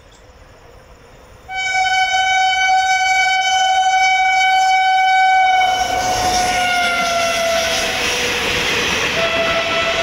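Indian Railways WAP-7 electric locomotive's horn sounding one long blast starting about a second and a half in, its pitch dropping as the locomotive passes. The rushing noise of the passing train comes in under it midway, and a second, lower horn note sounds near the end.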